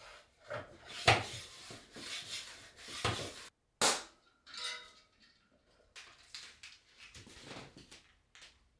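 A hand floor pump being worked to inflate a road bike's rear tyre toward about 100 psi: a few strokes about a second apart, each a rush of air. About four seconds in comes a short, sharp burst as the pump head is handled at the valve, followed by light knocks and rubs of the pump being handled.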